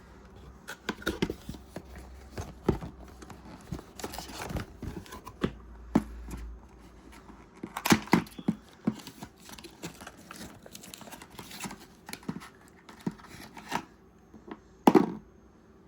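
Packaging being handled and unpacked by hand: scattered clicks and knocks with bursts of rustling, and one louder knock near the end.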